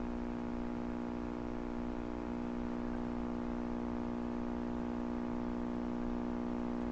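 Lafayette HA-63 communication receiver's speaker giving out a steady hum with a buzzy stack of overtones while the set runs on reduced voltage from a variac: the sign of failed electrolytic filter capacitors.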